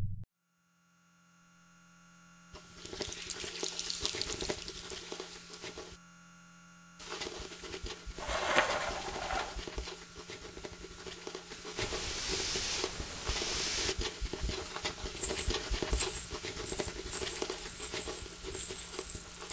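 After a moment of silence, irregular light scratching and pattering sets in and keeps going, with a few louder rustling swells midway, like a small animal scurrying behind a wall.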